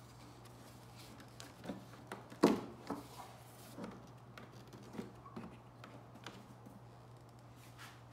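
Hard plastic clicking and knocking as the engine cover and air-box assembly is worked loose from its clips and hoses by hand, with one sharp knock about two and a half seconds in and a few lighter clicks after. A steady low hum runs underneath.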